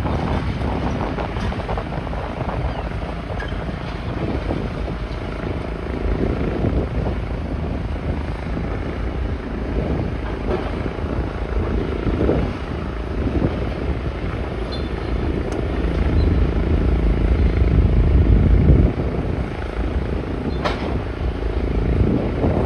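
A heavy diesel engine, typical of demolition machinery, running with a low rumble. It grows louder for a few seconds past the middle, with a few sharp knocks.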